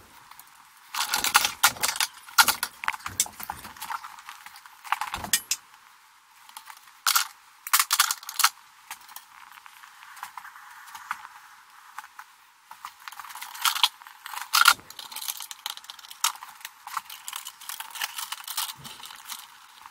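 Sheathed electrical cables and wires being handled and worked into a metal breaker panel: irregular rustling, scraping and sharp metallic clicks and rattles.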